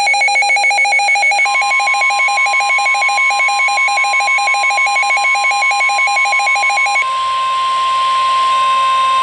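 A weather radio's alert alarm beeps rapidly in a two-pitched pulsing pattern. About a second and a half in, the steady 1050 Hz NOAA Weather Radio warning alert tone joins it. The beeping stops about seven seconds in, leaving the steady tone, which signals that a severe thunderstorm warning is about to be read.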